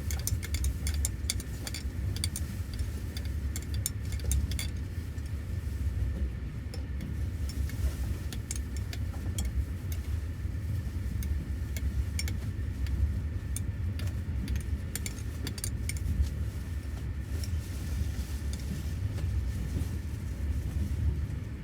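Steady low rumble inside a passenger train's sleeper carriage, with frequent small clicks and knocks scattered over it.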